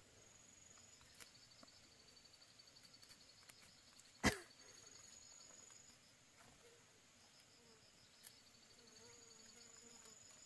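Faint insect chirping: a high steady trill with an evenly pulsing chirp below it, and one sharp click about four seconds in.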